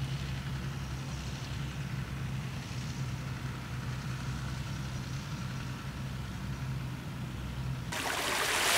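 Tractor engine running steadily at low revs. Near the end a loud rush of surf cuts in suddenly.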